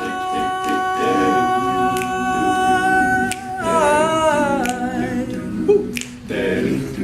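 Male a cappella group singing without words: a chord held steady for about three and a half seconds that then slides down in pitch, with background vocal parts under it. Finger snaps keep time about every second and a half.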